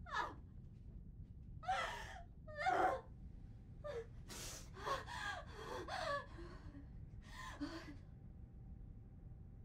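A young woman crying: a string of gasping sobs and short broken wails, with pauses between them.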